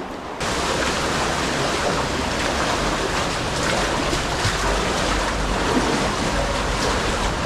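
Steady rush of flowing water from an underground river, starting abruptly about half a second in.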